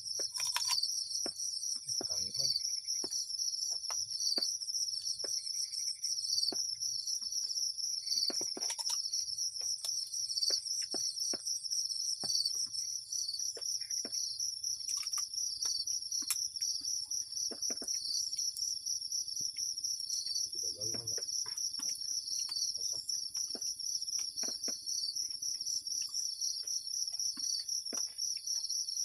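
A steady chorus of insects chirping in high, continuous pulsing trills, with scattered faint clicks and a few brief lower sounds about 2, 8 and 21 seconds in.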